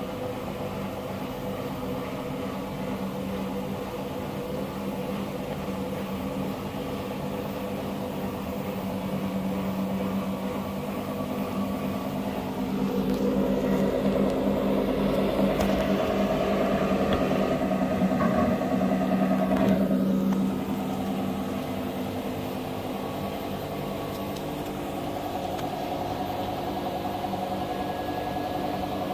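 Empty front-loading washing machine running its wash cycle, the drive motor humming steadily as the drum turns. About halfway through, the drum picks up speed and the machine grows louder and rougher for several seconds, then drops back to the steady hum.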